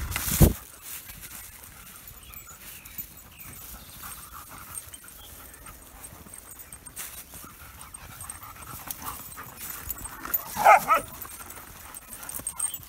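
Dogs on a walk panting, with a short yelping bark of a few quick pulses about eleven seconds in. A thump right at the start.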